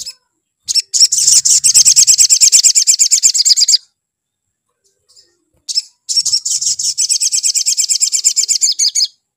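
Male olive-backed sunbird singing in full, excited song: two long bouts of fast, high, evenly repeated notes, each about three seconds long, with a short pause between.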